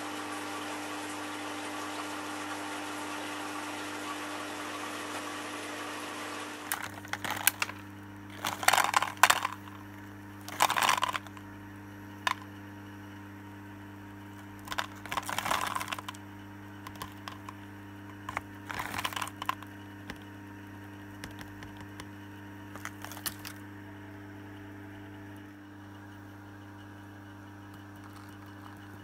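Pumped wort running into a stainless boil keggle during the fly sparge: a steady rush of liquid over a low pump hum, which cuts off about seven seconds in. After that, a steady low hum carries on under scattered bursts of clicks and rustles from hops and paper cups being handled.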